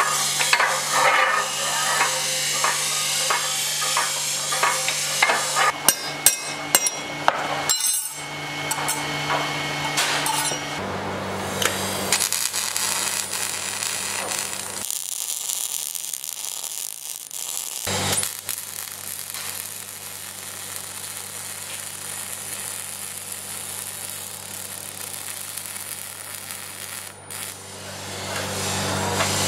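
Metal parts clinking and knocking against each other over a steady electrical hum. After about eleven seconds this gives way to the crackling hiss of a MIG welding arc with its welder's hum, which stops for a few seconds in the middle and then starts again.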